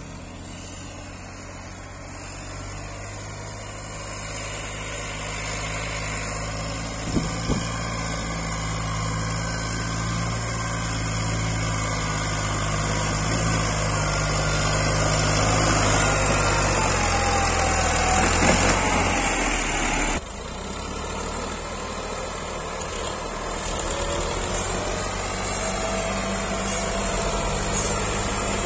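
Massey Ferguson tractor's diesel engine running hard under heavy load, pulling a heaped soil trolley so that the front wheels lift, growing steadily louder. Two sharp knocks come about seven seconds in. About twenty seconds in the sound changes suddenly to another loaded tractor's engine.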